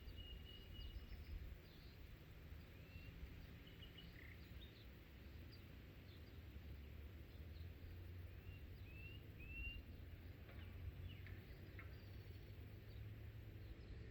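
Faint birds chirping: scattered short whistled notes, a few sliding up in pitch, over a low steady rumble of outdoor background noise.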